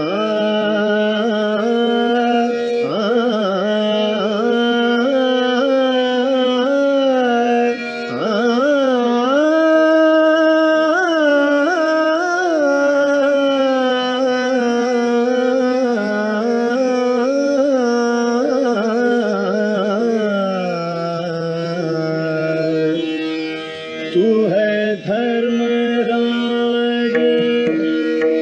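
Hindustani classical male vocal in Raga Khat: the voice glides and ornaments between long held notes over a steady tanpura drone, with harmonium accompaniment.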